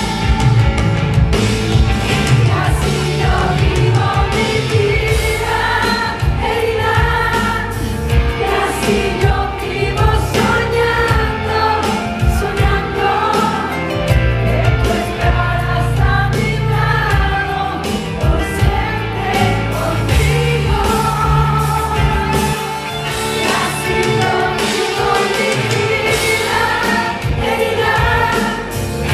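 Live Latin pop concert: a female singer sings over a full band of drums, bass, keyboards and electric guitar, heard through the venue's PA from within the audience.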